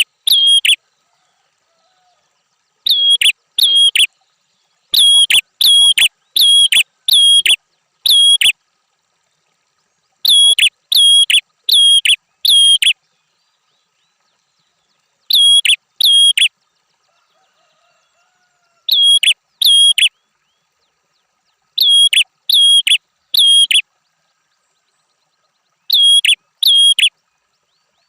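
A prinia (prenjak) singing: sharp, high chirping notes repeated about two a second in short bouts of two to six, with silent pauses between the bouts.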